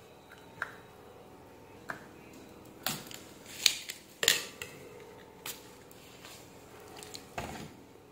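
Sharp clicks and taps of a soldering iron and desoldering tools handled on a circuit board and workbench, about seven, irregularly spaced.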